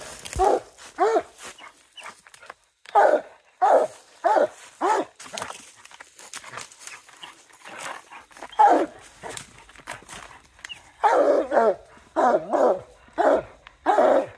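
Coonhound barking treed, standing up against the tree trunk: a string of short barks about half a second to a second apart, with a pause in the middle. It is the hound's treed bark, the sign that it has a raccoon up the tree.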